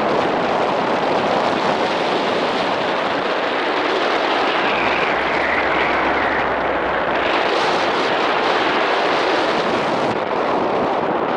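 Steady wind rushing over the microphone of a paraglider in flight.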